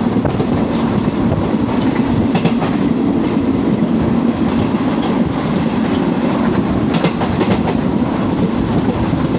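Passenger train running, heard from inside a moving carriage: a steady rumble of wheels on the track, with short runs of sharper clicks about two and a half seconds in and again about seven seconds in.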